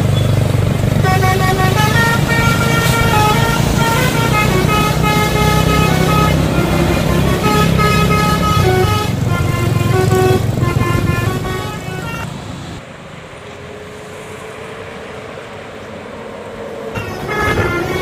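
Basuri multi-tone 'telolet' bus horn playing a quick melody of stepped notes over a bus engine's low rumble. Both drop away about twelve seconds in to a quieter stretch, and the sound rises again near the end.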